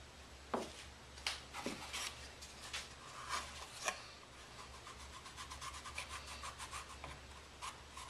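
A few light knocks and taps as the small wooden stairwell is picked up and handled, then a finger rubbing wood putty into its glued seams in quick back-and-forth strokes.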